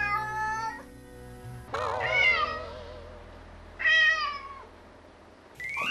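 Cat meowing loudly three times, each a drawn-out, wavering cry of under a second, over background music. It is a cat left home alone crying for its absent owner, a sign of separation anxiety.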